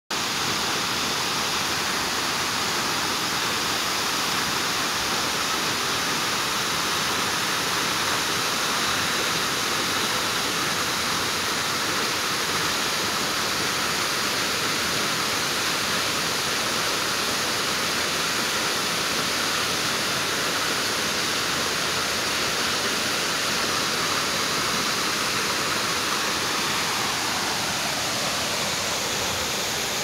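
Waterfall pouring into a rocky pool: a steady, even rush of falling water.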